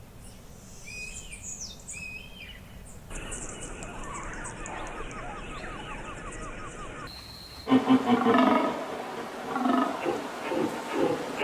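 A run of animal sounds: faint chirping calls that bend in pitch for the first few seconds, then a steady high hiss with a fast, even ticking call, and from about eight seconds a louder, deep animal call or roar, the loudest part.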